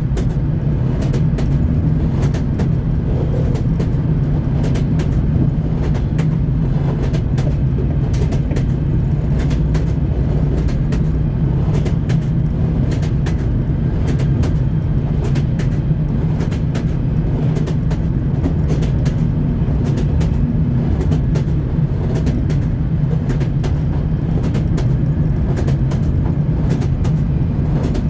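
Train wheels clattering over the rail joints: a steady low rumble with frequent sharp clicks, about one or two a second, continuing evenly.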